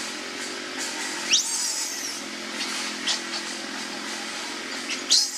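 Baby macaque squealing twice, high-pitched cries that sweep upward, about a second in and again near the end, over a steady low mechanical drone.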